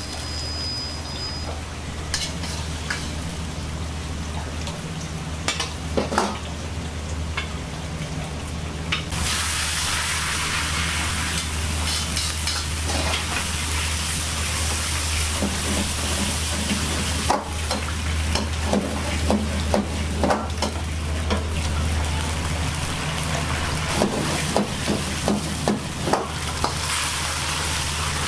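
Food sizzling in a wok as it is stir-fried, with a metal ladle scraping and knocking against the wok, over a steady low hum. The sizzle turns much louder and hissier about nine seconds in, and the ladle knocks come thick near the end.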